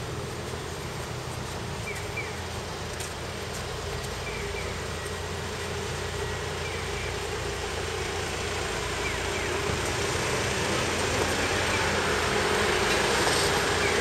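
Vehicle noise swelling steadily louder through the second half, over a steady low machine hum.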